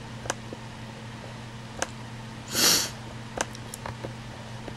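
A short sniff about two and a half seconds in, over a steady low hum, with a few faint sharp clicks scattered through.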